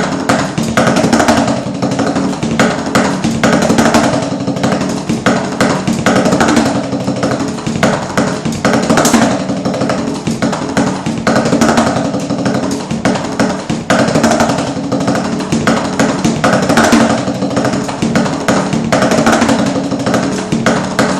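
A drum kit being played continuously: a dense, unbroken run of drum and cymbal strikes.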